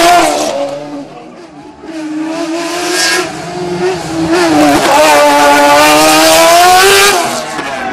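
Fiat 600-based hillclimb prototype with a Suzuki engine, running at high revs. It lifts off about half a second in and comes back on the throttle, then climbs steeply in pitch for a couple of seconds before lifting off again near the end.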